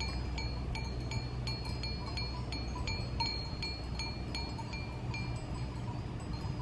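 Cowbells clanking in a quick, irregular run of metallic strikes, several a second, thinning out after about five seconds, over a low steady rumble.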